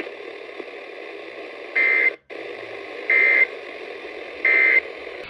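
Three short SAME digital data bursts from a NOAA Weather Radio broadcast, each a fraction of a second long and a little over a second apart, over steady radio hiss: the end-of-message code that closes an emergency alert. The signal drops out briefly just after the first burst.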